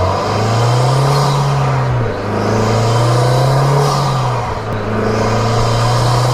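Mitsubishi Lancer Evolution X's turbocharged 2.0-litre four-cylinder engine heard through a K&N Typhoon cold-air intake, revving up and dropping back about three times, with a hiss near the top of each rev.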